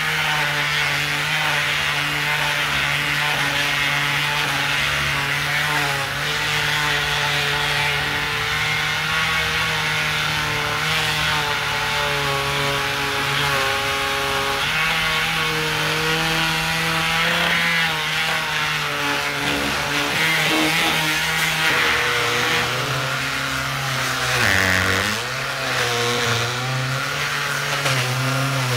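Cordless palm sander running steadily, sanding down Bondo Glass fibreglass filler on a diffuser panel. Its motor pitch dips briefly near the end.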